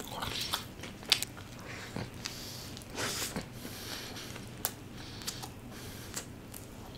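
Close-miked mukbang eating: a bite into a burger of cheese chicken momos and a potato patty, then mouth-closed chewing with scattered soft wet clicks and small crunches.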